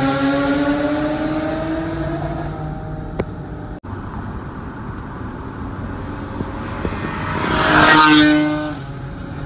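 Car engine accelerating hard, its pitch slowly rising, over road noise heard from inside a car. About eight seconds in, a car passes close alongside, its engine swelling loudly and then fading.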